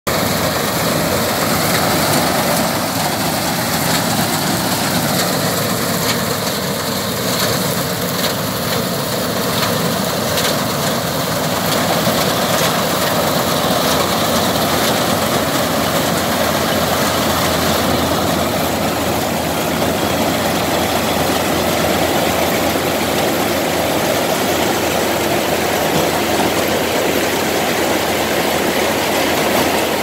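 Tractor-mounted Vikas 325 mini combine harvester running steadily while cutting and threshing wheat: the tractor engine under load together with the whir of the header and threshing drum.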